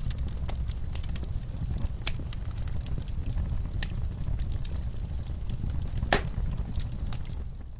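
Wood fire in a fireplace crackling, with many small sharp pops over a steady low rumble of the flames and one louder pop about six seconds in. The sound dips away right at the end.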